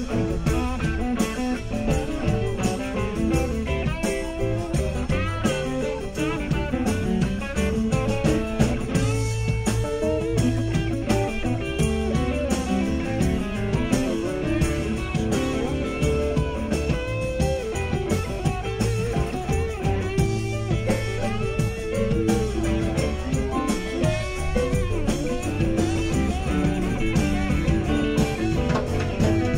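Live rock band playing an instrumental passage: a guitar solo with bending notes over bass and drums.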